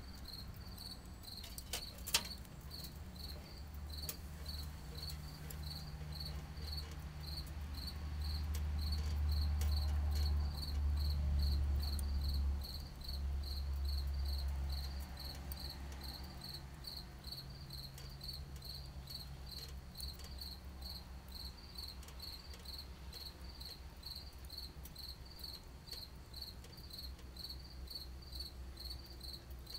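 A cricket chirping steadily, roughly two and a half chirps a second, over a low rumble that swells and is loudest in the middle before settling back.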